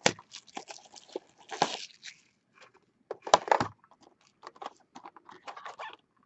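Foil trading-card pack wrapper crinkling and tearing in the hands in short, irregular bursts, the loudest about a second and a half and three and a half seconds in. The pack is being worked open with difficulty.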